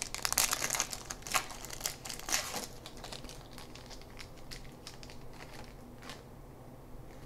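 A baseball card pack's wrapper being torn open and crinkled, dense crackling for the first few seconds, then thinning to a few faint rustles and ticks.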